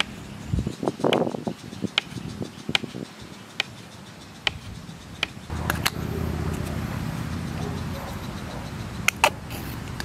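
Sharp clicks and clinks of camp cooking gear being handled, with a little rustling early on. A steady low rushing sound starts about halfway through and keeps going.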